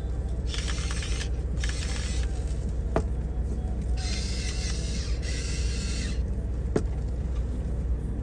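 Push-button electric salt and pepper grinder running in four short bursts, in two pairs, grinding seasoning; two sharp clicks fall between the bursts.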